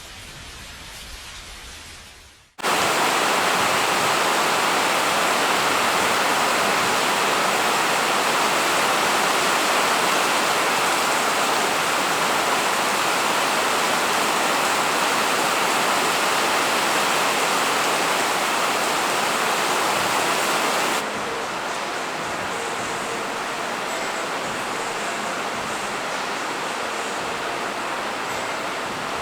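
Heavy rain pouring down as a steady, even hiss. It cuts in abruptly about two and a half seconds in, and drops a little in level about eight seconds before the end.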